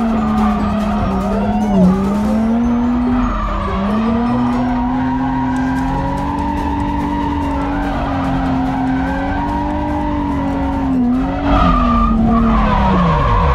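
Drift car's engine held high in the revs while the tyres skid, heard from inside the cabin; the revs dip briefly a few times and drop away sharply near the end.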